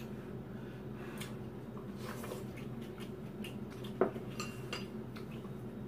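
Chopsticks tapping against a bowl and dishes in scattered small clinks, with one sharper clink about four seconds in, over a low steady hum.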